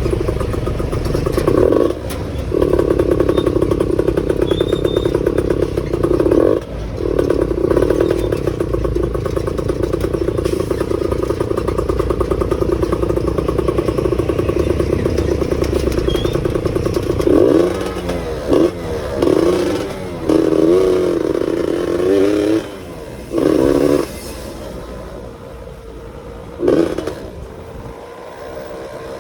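Yamaha F1ZR two-stroke underbone motorcycle engine, tuned for a rough 'ngorok' (snoring) exhaust note, running under way at a steady pitch. From about two-thirds in, the pitch repeatedly rises and falls as the throttle changes, and it runs quieter near the end.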